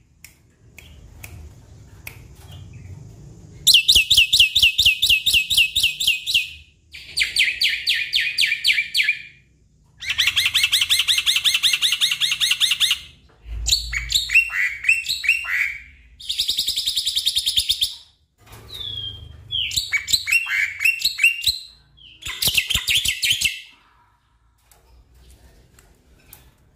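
Black-winged myna (jalak putih) singing: about seven bouts of rapid repeated notes and trills alternating with chirping phrases, each lasting one to three seconds with short pauses between. The singing falls quiet near the end.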